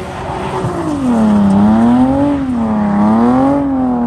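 Car engine revving hard through a burnout, its pitch rising and falling in slow waves about every second and a half, over the hiss of spinning tyres.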